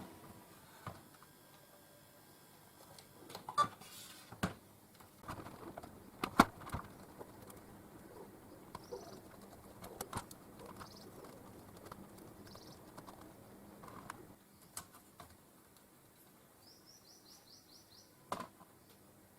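Faint, scattered clicks and knocks of a small electronic module being handled and opened. A bird chirps in the background, with a quick run of chirps near the end.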